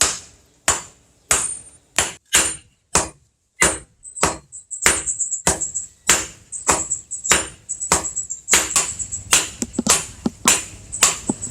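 Hand hammer striking hot steel on an anvil while forging a knife blade: regular blows about one and a half a second, each with a short bright metallic ring, coming faster and less evenly in the last few seconds.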